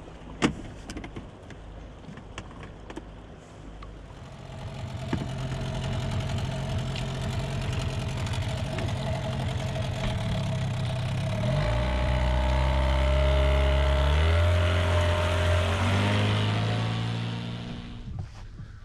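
A boat engine running steadily, changing pitch about 11 seconds in and then rising gradually, before fading out near the end. A sharp knock comes just before it, near the start.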